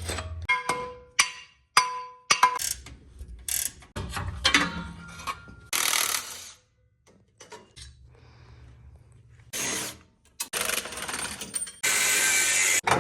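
Mechanic's tool noise in short, choppy bursts: ratcheting clicks, knocks and brief rasping power-tool runs, starting and stopping abruptly.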